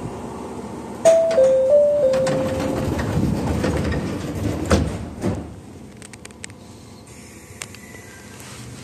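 Train door chime of a few stepped notes over a rush of air, then the sliding passenger doors shut with two knocks about five seconds in.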